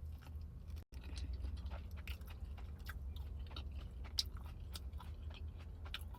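Close-up chewing of a Taco Bell Crunchwrap, with many small crunches from its crisp tostada layer, over a steady low hum. The sound cuts out for an instant about a second in.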